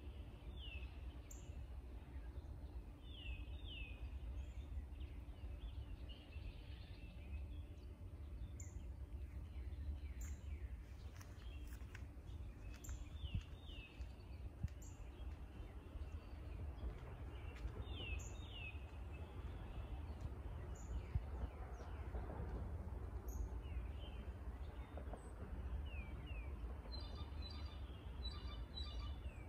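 Lakeside outdoor ambience: a steady low rumble of background noise with songbirds calling. The calls are short high chirps that sweep downward, often in pairs, repeating every few seconds, with a quick run of faint high notes near the end.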